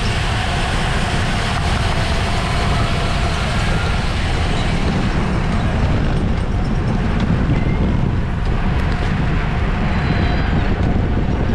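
Steady rush of wind buffeting the microphone of a camera riding along in a bicycle road race, a constant low rumble with a hiss of moving air above it.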